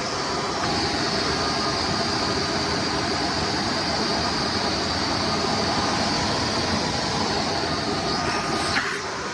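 Hoover Runabout Deluxe vacuum cleaner running, its motor noise steady with a high whine over it; near the end there is a click, the whine stops and the machine runs on quieter.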